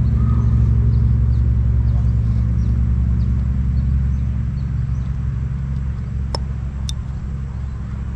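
A motor running nearby: a steady low engine rumble that is loudest in the first few seconds and then slowly eases off. Past the middle come two sharp clicks about half a second apart.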